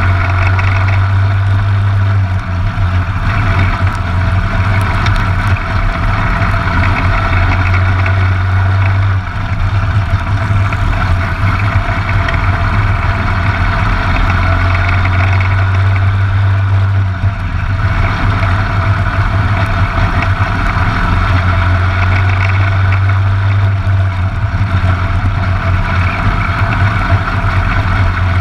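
Briggs & Stratton LO206 single-cylinder four-stroke kart engine running under racing load, a steady drone that dips briefly twice.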